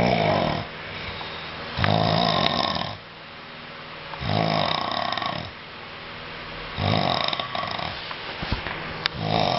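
A sleeping man snoring loudly, one snore about every two and a half seconds, five in all with the last starting near the end.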